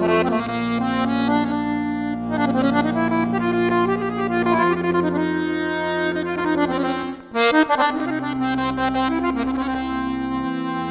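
Dallapé piano accordion playing a right-hand melody with quick runs over held low bass notes; the playing breaks off for a moment about seven seconds in and then picks up again.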